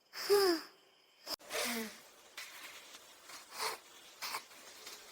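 Two short wordless vocal sounds, each sliding down in pitch, like a cartoon character's grunts, followed by faint scattered ticks and rustles.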